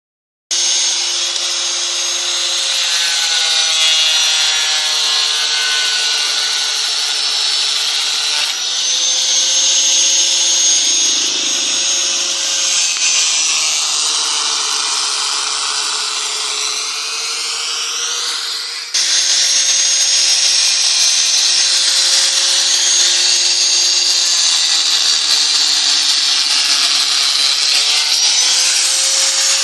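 Corded angle grinder cutting rusty steel flat bar: a steady high motor whine over a loud grinding hiss, the pitch sagging now and then as the disc bites into the steel. The sound breaks off and picks up again abruptly twice.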